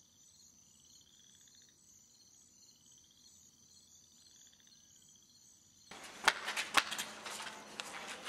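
Faint rising chirps repeating about once a second over quiet room tone. About six seconds in, a noisier stretch starts, with several sharp knocks and clicks over a low steady hum.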